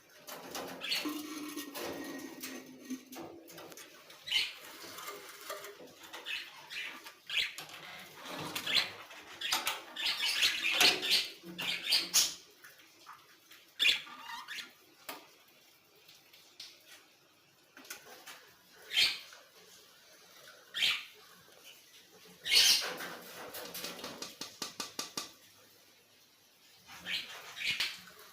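Pet birds flapping their wings and moving about, in irregular short bursts, with a quick run of ticks a little past halfway.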